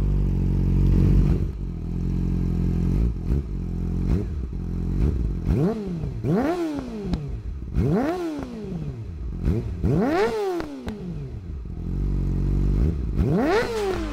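Sport motorcycle with an aftermarket carbon-sleeved slip-on exhaust, idling at first, then revved in four or five quick throttle blips from about five seconds in. On each blip the pitch climbs sharply and falls back to idle.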